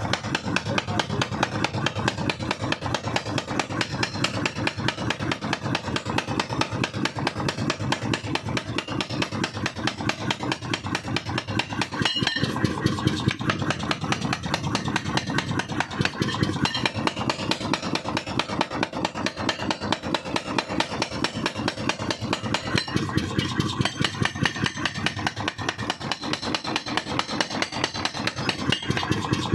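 Small 5 kg power forging hammer running, its ram striking in rapid, evenly spaced blows over the steady drone of its drive.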